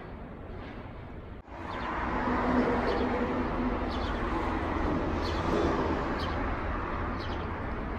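Outdoor street ambience: a steady wash of traffic and wind noise that changes abruptly about a second and a half in to a louder wash, with a faint low hum and short high chirps, likely small birds.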